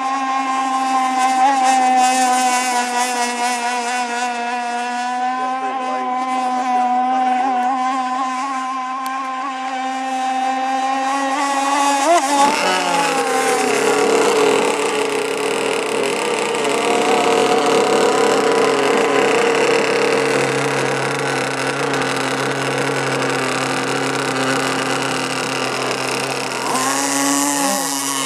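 Radio-controlled model speedboat running at high speed, its motor giving a steady high-pitched whine. About twelve seconds in the pitch drops and the sound turns rougher, and a short rising whine near the end comes as the boat turns hard.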